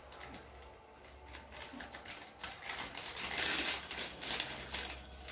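Plastic potato-chip packet crinkling and rustling as a hand rummages inside it for chips, with many small crackles; the rustle is loudest about three seconds in.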